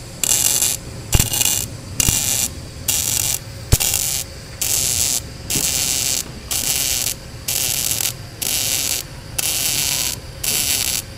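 Tenya Smart MIG 265 welder stitch-welding in short bursts: the arc crackles for about half a second, stops, and restrikes roughly once a second, some bursts opening with a sharp snap. Welding in separate bursts bridges a 4–5 mm gap too wide for a continuous bead, giving a cold-MIG-like stitch.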